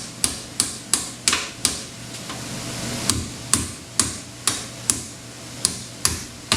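Hammer tapping repeatedly, about fourteen sharp strikes at a quick uneven pace of two or three a second, with a pause of about a second near the middle.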